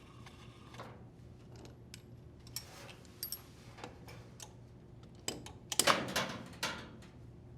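Hand tools working on a GE dryer's blower wheel as it is tightened onto the motor shaft: scattered, irregular metallic clicks and ticks, with a louder clatter of handling about five to seven seconds in.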